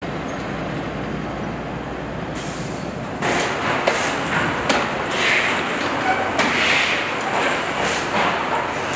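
Factory assembly-line noise. A steady rush of background noise is followed, from about three seconds in, by the clicks, knocks and brief hisses of parts being handled on the line, with faint voices.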